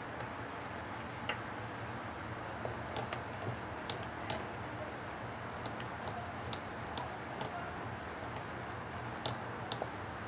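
Rolling pin working dough on a rolling board, making light, irregular clicks and taps as it rolls the roti out.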